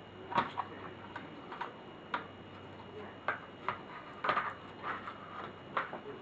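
Irregular light clicks and taps, about one or two a second, from small plastic and metal laptop parts and tools being handled during disassembly.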